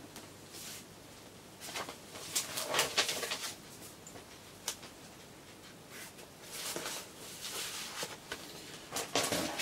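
Paper and card rustling and scraping as vinyl records, their paper inner sleeves and an LP cover are handled, in a few short bouts with a sharp click or two between.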